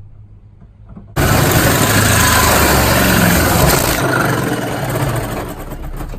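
Drill turning a 2-7/8-inch bi-metal hole saw, cutting through the van's sheet-metal body. It starts suddenly about a second in, runs loud and steady, and eases off somewhat after the first few seconds.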